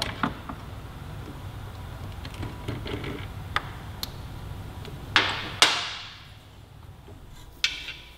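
Scattered light clicks and metal-on-metal knocks of hands and tools working the rear shock's upper mounting bolt free on a sportbike. Two louder clanks come about five seconds in and another near the end.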